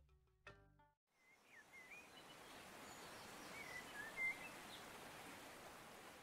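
Near silence: a faint steady hiss of outdoor ambience with a few soft bird-like chirps, after a last mallet-percussion note fades in the first second.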